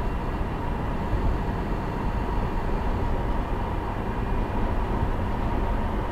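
A steady mechanical rumble with a faint, high steady whine running through it.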